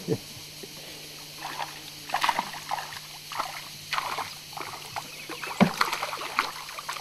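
Irregular splashing and sloshing of river water as a canoe is paddled and a hand reaches into the water to grab an arrow with a speared fish on it. A single sharp knock about five and a half seconds in.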